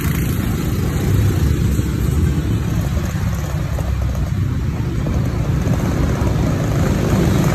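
Vehicle driving along a town street: a steady deep rumble of engine and road noise.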